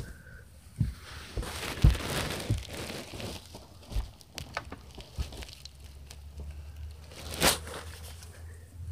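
Rustling and scattered knocks of a phone being handled and carried in the dark, with cloth brushing over the microphone. There is a burst of rustling around two seconds in, a sharp scrape about seven and a half seconds in, and a low hum from about halfway.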